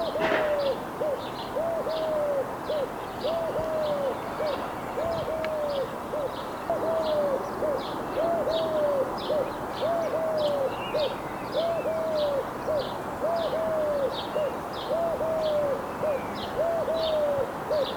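Eurasian collared dove cooing: its three-note coo phrase repeated over and over in a steady rhythm. Short high chirps from another bird tick along behind it, and there is one brief knock at the very start.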